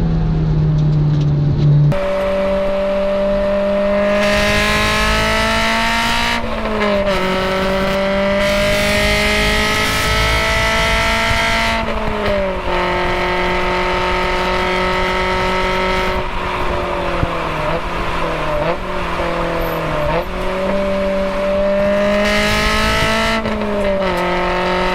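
Honda S2000's four-cylinder engine and aftermarket exhaust droning at a steady cruise. Its pitch dips slightly a few times as the throttle or speed changes, and the sound switches abruptly about two seconds in.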